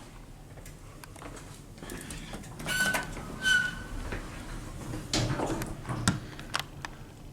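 Lift chime giving two short tones about three seconds in, followed by the lift doors sliding with a few clicks and knocks.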